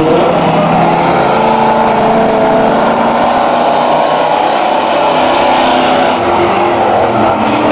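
Engines of demolition trucks racing on a speedway track, running loud and steady, with pitch shifting slightly as they speed up and pass.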